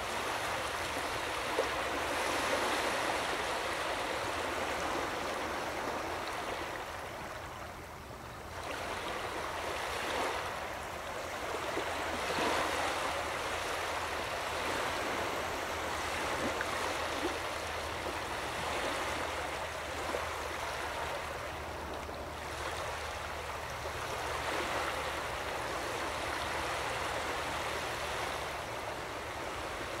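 Small waves washing over a shallow sandy beach: a steady rush of water that swells and eases every several seconds.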